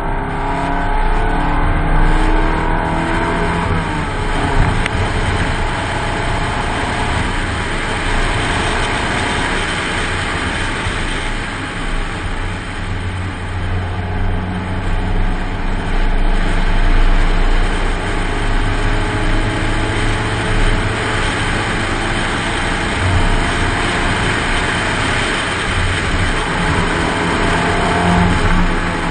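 1994 Rover 620 Si Lux's Honda F20Z1 2.0-litre SOHC four-cylinder engine driven hard, its note rising and falling with the throttle and gear changes, over steady road and wind noise.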